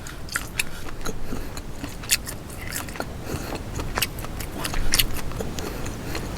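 Close-miked chewing of crawfish meat: a run of irregular sharp mouth clicks and smacks.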